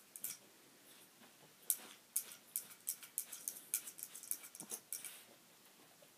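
Small poodle-type dog eating dry kibble from its bowl: a run of sharp, irregular crunches and clicks, a few at first, then after a pause a quick dense string that thins out near the end.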